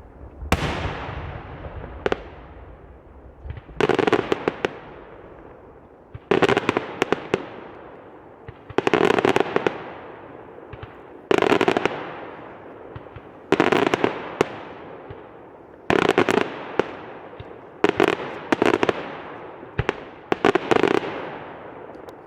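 Fireworks display: about nine loud volleys, each a rapid cluster of sharp bangs and crackles that fades away before the next comes, some two seconds apart.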